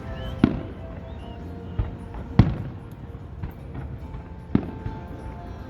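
Aerial fireworks exploding: about five sharp, echoing bangs, the loudest about half a second and two and a half seconds in. Music plays steadily underneath.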